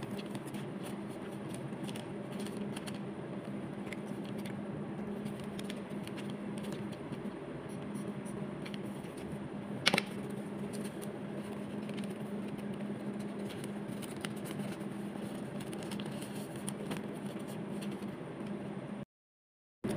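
A steady low hum runs throughout, with light paper handling and one sharp click about ten seconds in. The sound cuts out completely for under a second near the end.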